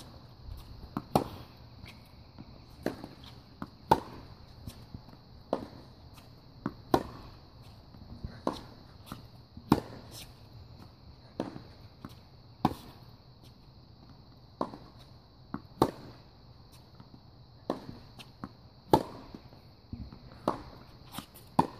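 Tennis balls struck with rackets and bouncing on a hard court: sharp pops that come about every one to one and a half seconds during a hitting drill.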